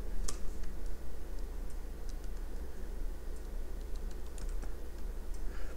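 Computer keyboard keystrokes: a few scattered key clicks, the clearest about a third of a second in, over a steady low hum.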